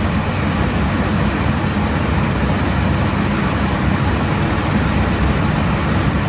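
Steady, loud rush of airflow and engine noise heard inside an aircraft in cruise flight, with a low hum beneath it.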